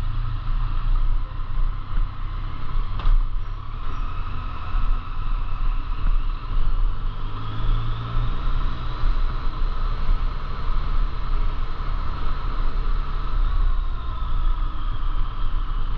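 An engine running steadily under way, a continuous low drone with a higher whine that rises slightly partway through and eases back near the end. A single sharp click comes about three seconds in.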